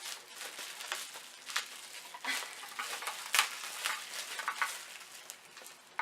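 Plastic bubble wrap being handled, crinkling and crackling unevenly, with a few sharp clicks; the loudest comes about three and a half seconds in.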